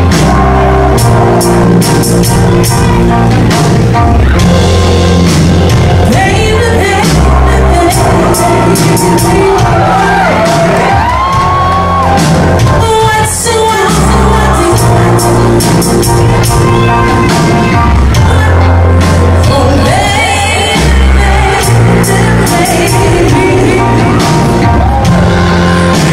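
Live band performance with a woman singing lead over a low bass line, drums, keyboards and electric guitar.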